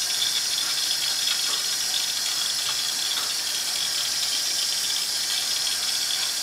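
Tap water running steadily into a sink basin.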